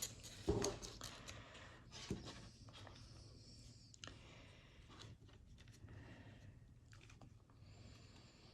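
Light handling sounds from a brake cable and small metal handle parts being worked by hand: a couple of short clicks or knocks near the start, then faint scattered ticks.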